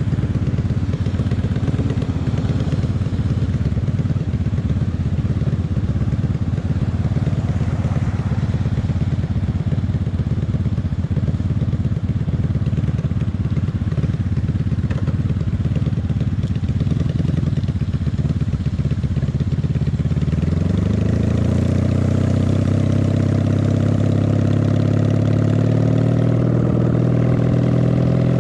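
Honda Magna VF750's V4 engine running under a riding motorcycle, a rough low rumble at first. About two-thirds of the way through the note turns clear and climbs slowly and steadily as the bike accelerates.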